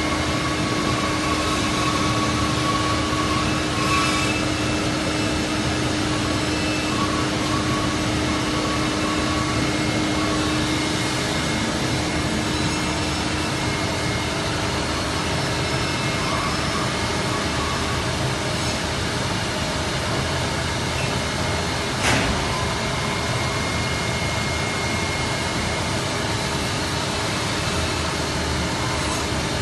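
Belotti 5-axis CNC machine running: a steady mechanical hum with a steady whine over it, and one sharp knock about two-thirds of the way through.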